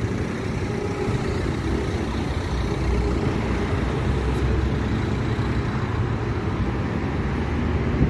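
Steady traffic noise from passing road vehicles, a continuous low rumble without distinct events.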